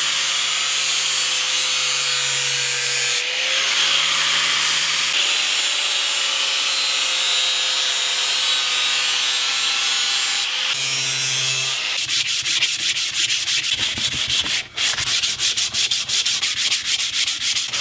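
Electric angle grinder running steadily, its abrasive disc grinding the corners off a purpleheart wood axe-handle blank. About twelve seconds in the motor stops and is replaced by fast, even back-and-forth strokes of hand sanding on the wooden handle.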